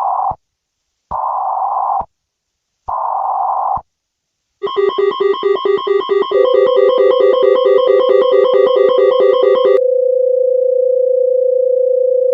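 Emergency Alert System style alert tones. Three short buzzing data-header bursts, then a rapid pulsing beep at about five a second joined by a steady tone, which then holds on alone. The sequence signals an incoming emergency alert.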